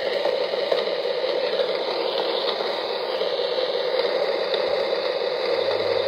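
Steady rain falling: an even hiss with faint scattered ticks of drops.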